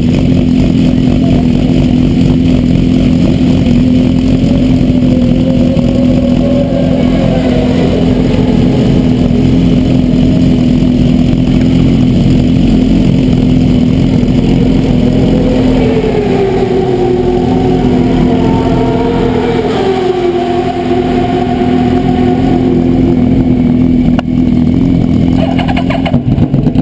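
Motorcycle engine idling steadily at close range. A second, higher engine note wavers up and down through the middle.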